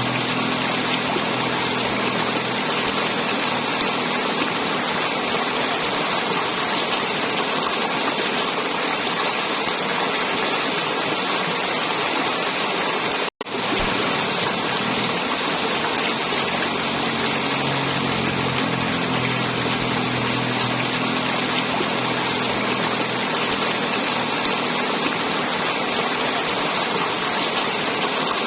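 River water flowing and gurgling in a steady rush. It cuts out for an instant about halfway through.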